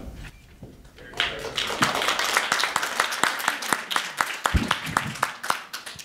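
Audience applauding, the clapping starting about a second in and continuing steadily.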